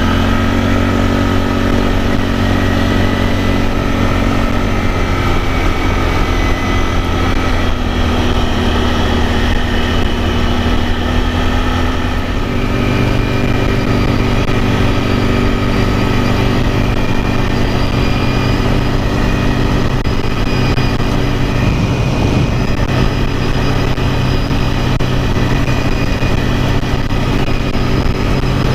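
Can-Am Outlander ATV's V-twin engine running steadily while riding, its note stepping up to a higher, steady pitch about twelve seconds in as the quad speeds up.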